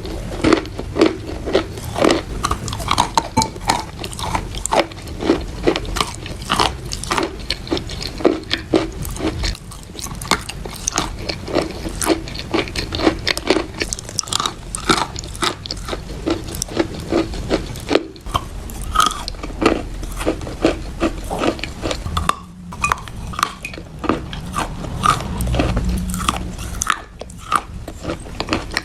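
Close-up crunching of wet chalk being bitten and chewed: a dense, continuous run of crisp, crackly bites and chews, broken by a few brief pauses in the second half.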